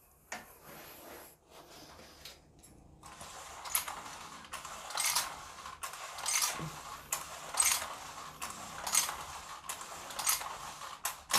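Seatbelt webbing sliding in and out of the retractors of a homemade dumbbell supporter as dumbbells are pressed overhead: a rasping swish that swells with each rep, about every second and a half from about three seconds in.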